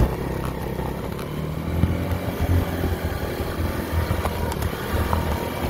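A small vehicle running with a steady low rumble as it moves over rough ground, with a few sharp knocks over the rumble.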